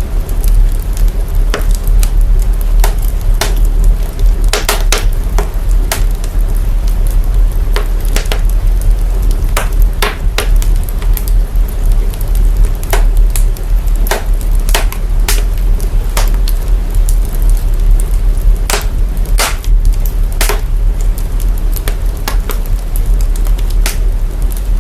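Burning fire crackling, its sound processed to boost the deep bass: a loud, steady low rumble under irregular sharp pops and crackles.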